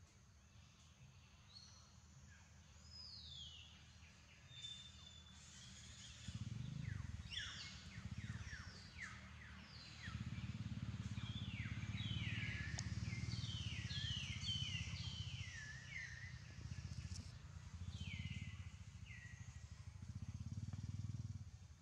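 Birds calling with many quick, falling chirps, thickest through the middle and later part, over a low rumble that comes in about six seconds in and stops abruptly just before the end.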